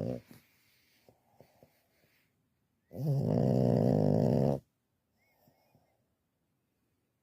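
A pug snoring: a loud, buzzing snore about three seconds in that lasts about a second and a half. Before it, the previous snore cuts off right at the start, and a few faint clicks fall in the pause.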